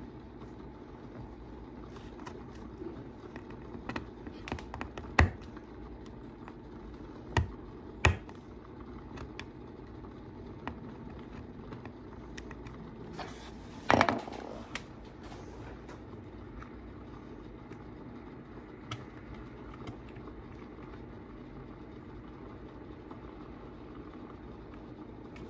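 Hand-tool work on a wooden workbench: a small knife is set down and handled against the bench top, giving a few sharp taps and clicks and a short scrape about halfway through, over a steady low hum.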